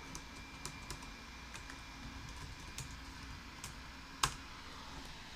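Computer keyboard typing: scattered light key clicks, with one louder keystroke about four seconds in.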